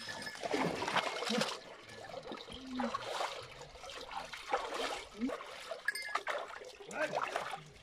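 Water splashing and trickling in irregular bursts as a dog is washed by hand in a stone water trough.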